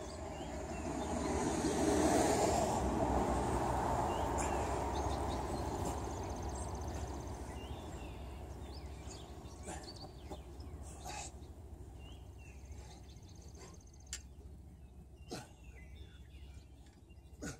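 Outdoor ambience: a broad rushing noise swells to a peak about two seconds in and then slowly fades, over a steady low rumble, with faint bird chirps and a few sharp clicks in the second half.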